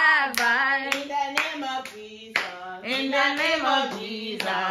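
A high voice singing a short tune, with sharp hand claps dropped in between the sung notes.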